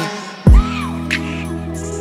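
Hip-hop/R&B song with a heavy bass kick about half a second in and sustained synth tones under it.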